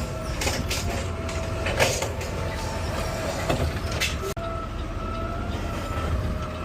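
Automated garbage truck running, heard from inside the cab: a steady low engine rumble with a faint steady whine, and several rattles and knocks over the first two seconds.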